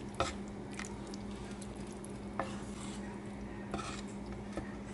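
A wooden spoon stirs a pot of thick lentil soup, with a few light knocks of the spoon against the metal pot. A steady low hum runs underneath.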